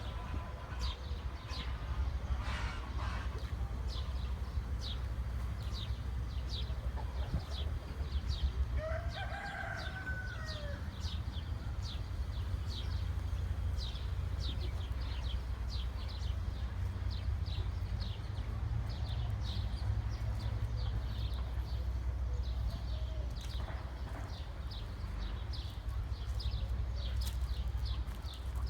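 A rooster crows once, about nine seconds in, amid a constant run of short, high chirps, over a steady low rumble.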